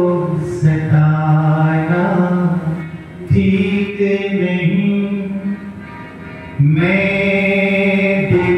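A man singing a Hindi Krishna bhajan live into a microphone in long, held phrases. A quieter stretch comes past the middle, then a loud new phrase enters about two-thirds of the way through.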